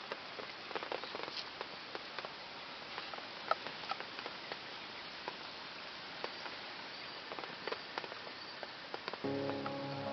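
Outdoor campsite sound: a steady soft hiss with many small, irregular crackles and ticks. Background music with guitar comes back in near the end.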